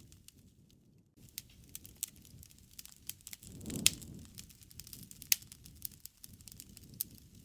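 Wood fire crackling and popping, a thick run of small snaps over a low rush of flame that swells about halfway through. There are two sharp pops, one just under 4 seconds in and one a little after 5 seconds, and a brief lull at the very start.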